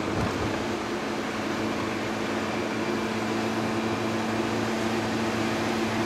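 Steady engine drone and road noise inside a moving vehicle, holding an even pitch throughout.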